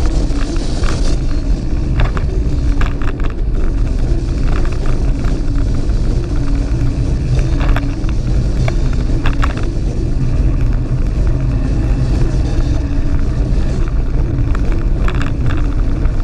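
2006 Gary Fisher Mullet mountain bike rolling fast over a loose gravel trail: a steady low rumble of tyres on gravel and wind noise, with scattered rattles and clicks from the bike.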